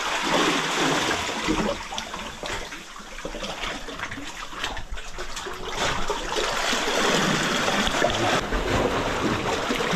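Seawater splashing and sloshing close to the microphone, louder again in the second half.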